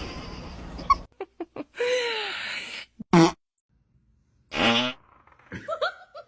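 Several separate fart noises, each a second or less, played as a prank, with a dog's short pitched sounds in a quick string near the end.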